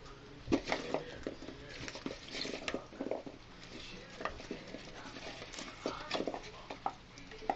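Guinea pigs eating fresh vegetables, with irregular short crunches and clicks of chewing and small movements in the cage.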